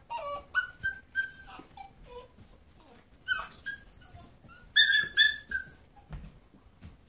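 German Shepherd puppy giving short high-pitched whimpers and squeals during rough play, in several quick clusters.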